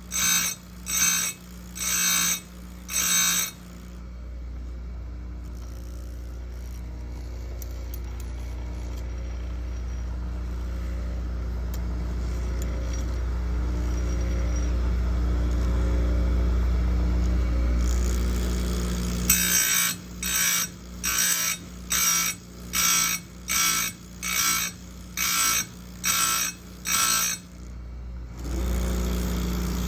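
Bench grinder sharpening chainsaw chain cutters in short, evenly repeated strokes, each a brief high-pitched grind, for the first few seconds and again in the second half. Between the two runs of strokes a low rumble grows steadily louder for about fifteen seconds.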